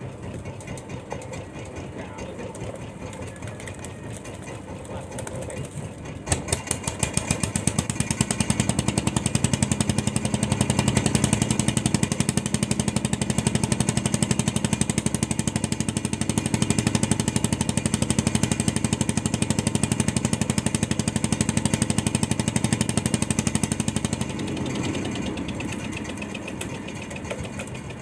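A fishing boat's engine running, pushed harder from about eight seconds in and eased back near the end, with a rapid loud clatter from about six seconds in until shortly before the end, while a hooked blue marlin is being fought.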